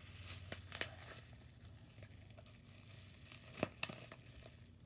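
Faint crinkling and rustling of plastic bubble wrap being handled and unwrapped, with a few sharper crackles about three and a half seconds in.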